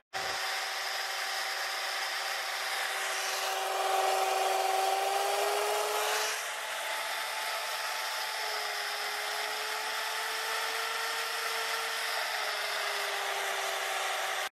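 3D-printed micro Pelton turbine and its generator spinning under a water jet: a steady whine that wavers slightly in pitch, over a constant hiss of spraying water.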